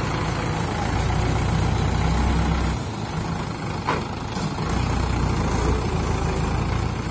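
Mahindra 585 DI tractor's four-cylinder diesel engine running while pulling a trolley loaded with sand; it drops back a little under three seconds in, then picks up again. A single short click just after the middle.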